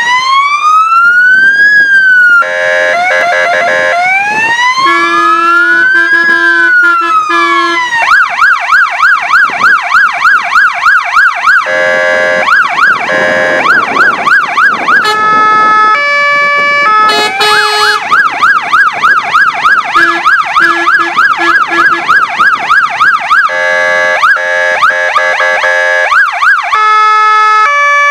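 Siren of a Scania P360 fire engine cycling through its tones. It opens with slow rising-and-falling wails, changes to a fast yelp of about three sweeps a second through the middle, and breaks several times into an alternating two-tone, which it returns to near the end.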